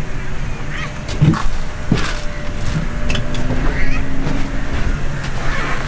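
Outdoor beach ambience with a steady low rumble, and a couple of knocks about one and two seconds in as a man climbs into a beached boat.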